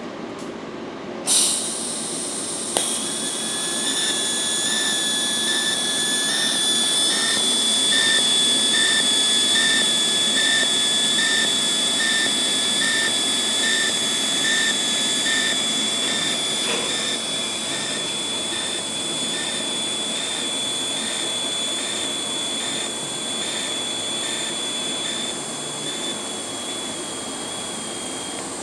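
TIG welding arc set to pulse mode: a sharp crackle as the arc strikes about a second in, then a thin, high, steady whine over a hiss that pulses in an even rhythm, cutting off near the end.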